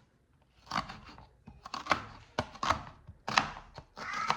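Knife chopping an onion, several sharp, uneven strokes.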